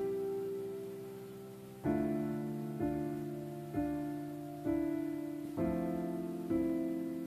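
Slow, gentle background piano music: one note held for the first couple of seconds, then a new note struck about once a second, each left to ring and fade.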